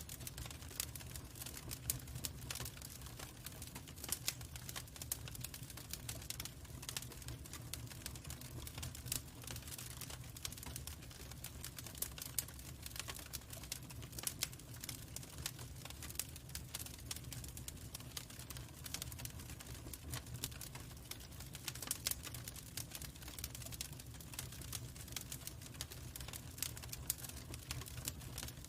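Log fire crackling, with irregular sharp pops and snaps over a steady low rumble.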